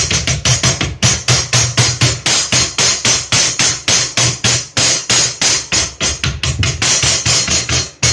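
Rapid, even hammer taps on the lead end of a toilet drain pipe, peening its lip over a brass closet flange, about five strikes a second.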